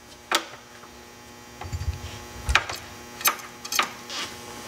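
A steady electrical mains hum with a few sharp clicks and soft low knocks, from the ATV's rear brake being pumped to push the caliper pistons out.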